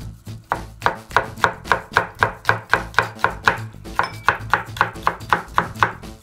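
Chef's knife slicing a green pepper into thin strips on a wooden cutting board: a steady run of sharp chops, about four a second.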